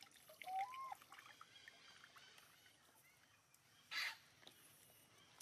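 Water running and dripping off a wet baby macaque as it climbs out of a concrete water tank, with a short squeak that rises then falls about half a second in. A short, sharp noise about four seconds in is the loudest moment.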